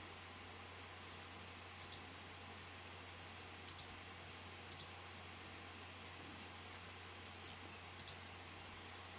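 A handful of faint computer mouse clicks, some in quick pairs, over a low steady hum of room tone.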